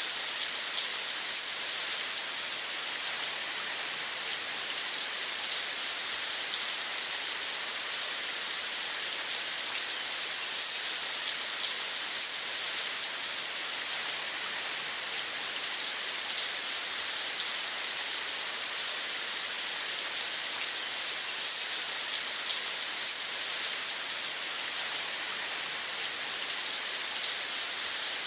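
Steady rain falling, an even hiss with fine pattering drops that holds constant throughout.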